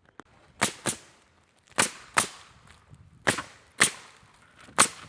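Nails being driven into wooden 1x4 furring strips on a roof: eight sharp cracks in pairs, a pair about every second and a half.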